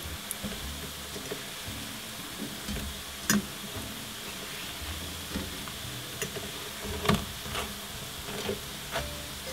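Bammies (cassava flatbreads) frying in a nonstick pan with a steady sizzle. A few sharp clicks and scrapes come from a metal fork against the pan as the pieces are turned over.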